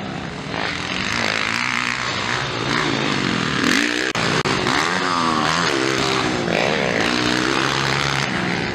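Motocross dirt bike engines revving hard as the riders race by, the pitch climbing and dropping again and again with throttle and gear changes.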